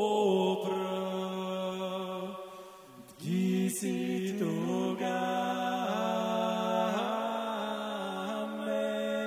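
A cappella vocal ensemble singing a Georgian polyphonic song in long held chords that shift every second or so. The voices fade about two and a half seconds in and re-enter on a new chord about three seconds in.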